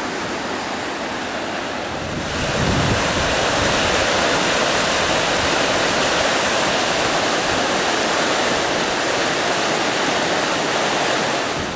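Steady rush of the River Shin's water flowing away from the Falls of Shin. It becomes louder and hissier about two seconds in.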